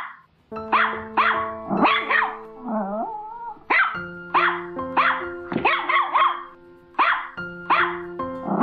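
A Chihuahua barking in distress: about fourteen sharp, high-pitched yaps, falling in pitch, coming in quick runs with short gaps. Background music with long held notes plays under the barking.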